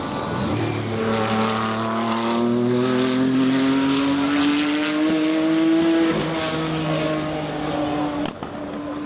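Turbocharged race car engine under acceleration, its pitch climbing steadily for about five seconds, then stepping down about six seconds in and running on at the lower pitch.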